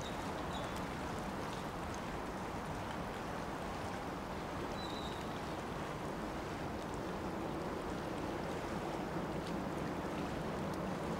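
Steady seaside ambience: an even hiss of wind and water.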